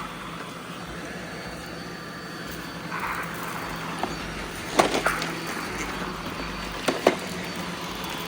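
Several robot vacuums running together with a steady motor hum and faint high whine, with a few sharp knocks about five and seven seconds in.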